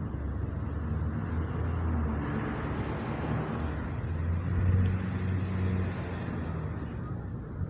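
Passing road traffic: a low engine hum with tyre noise that swells twice, loudest about five seconds in.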